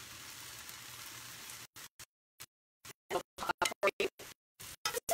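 Noodles sizzling in a hot stainless-steel sauté pan as they are tossed with tongs: a steady, even sizzle that cuts off a little under two seconds in. After a gap of near silence, choppy snatches of a voice break in and out in the second half.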